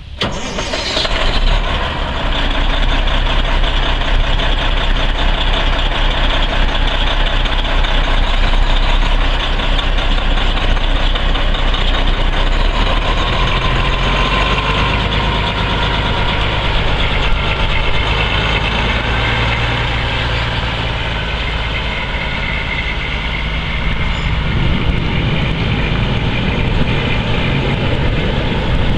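Semi truck's Detroit Diesel Series 60 12.7-litre inline-six diesel starting up, catching about a second in, then running steadily. Its pitch shifts midway as the truck pulls away and drives off.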